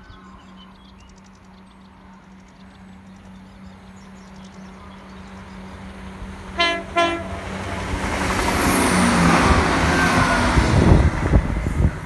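CrossCountry Class 170 Turbostar diesel multiple unit approaching and sounding its horn in two short blasts about six and a half seconds in, then passing close with a rising rush of underfloor diesel engine and wheel-on-rail noise that is loudest near the end.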